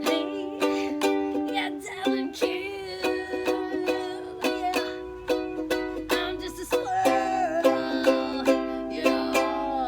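Ukulele strummed in a steady rhythm, its chords changing every second or two.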